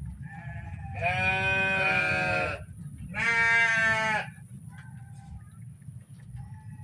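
A farm animal bleating: two long bleats, the second starting about three seconds in, with fainter short calls around them, over a steady low rumble.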